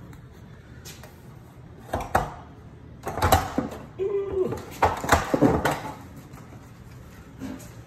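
2-inch horizontal blind's headrail and slats clattering as the blind is handled and pulled out of its mounting brackets: a run of knocks and rattles from about two seconds in to about six seconds in.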